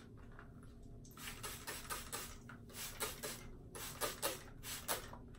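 Plastic trigger spray bottle misting water onto hair: a quick run of short spritzes, one squeeze after another in little clusters, starting about a second in.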